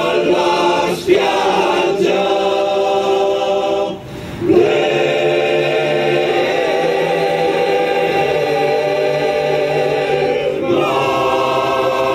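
Men's choir singing unaccompanied, holding long sustained chords, with a brief pause about four seconds in.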